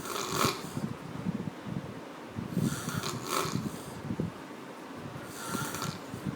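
A sleeping person snoring heavily: rough, rattling snores with a breathy hiss, one breath about every three seconds.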